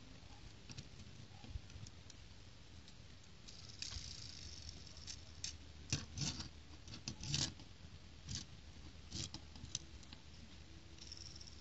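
Small plastic brick-built toy motorcycle being handled on a wooden table: light, irregular clicks and taps of plastic parts, with a short rustle about four seconds in.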